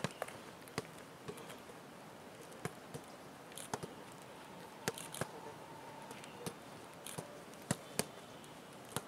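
Sharp, irregular thumps from footballers training on a grass pitch, about a dozen spread unevenly, with faint open-air background between them.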